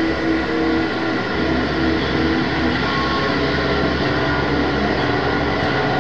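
Dense, steady drone of noise with a low hum underneath and several held tones layered on top, typical of improvised experimental noise music, sounding like a running engine or train.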